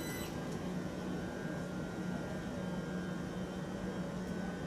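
London Overground Class 378 electric train slowing to a stop alongside the platform: a steady electrical hum over a low rolling rumble, with a high whine that dies away about a third of a second in.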